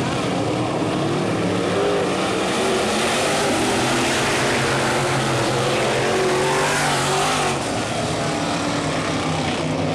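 A pack of dirt-track race cars at race speed, several engines running at once, their pitch wavering up and down as they race around the track.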